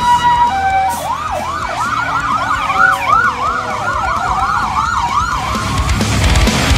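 Emergency vehicle electronic siren: it alternates between two tones, then switches about a second in to a fast yelp of about three up-and-down sweeps a second. A slower wail rises underneath near the end.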